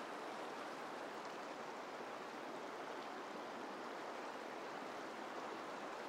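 River water rushing steadily as it spills over a low weir and rocks.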